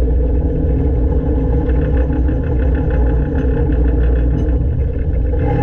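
Diesel engine of a 1970s Poclain LC80 excavator running steadily. The owner says it seems to have a misfire or fueling issue.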